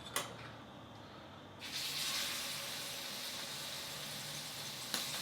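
Filet mignon steaks hitting a preheated pan: a steady sizzle starts suddenly about one and a half seconds in as the meat begins to sear. A light click near the start and another near the end.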